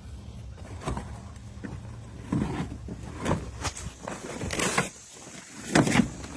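Shed debris and lumber being handled and loaded: a series of irregular knocks and scrapes, the loudest near the end, over a low steady hum that cuts out about five seconds in.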